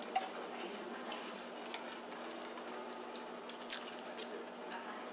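Stainless steel pan of water simmering on the stove with yardlong beans in it: a steady hiss, with a few small sharp ticks and pops scattered through it and a faint steady hum underneath.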